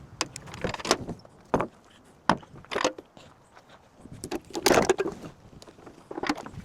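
Irregular knocks, clicks and rattles, with the busiest cluster about four to five seconds in.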